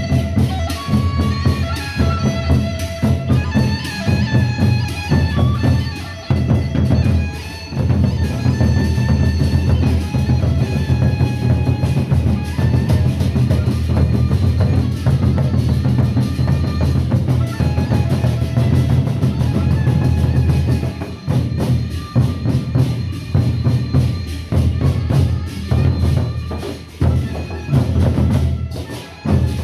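Sasak gendang beleq ensemble playing: large double-headed barrel drums beaten with sticks in a fast, dense rhythm, with ringing metal tones over them. The playing thins briefly about six seconds in and again near the end.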